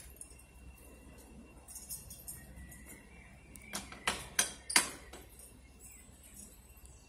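Four sharp knocks in quick succession about four seconds in, the last the loudest, over faint birdsong.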